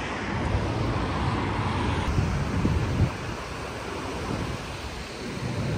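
Steady city traffic rumble with wind buffeting the microphone, a little louder about three seconds in.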